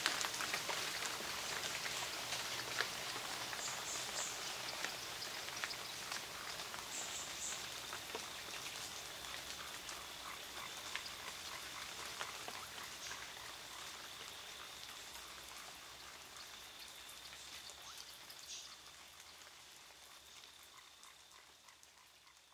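Closing fade of the ambient electronic background track: a dense crackle of small clicks over a hiss, with a faint steady high tone, dying away slowly.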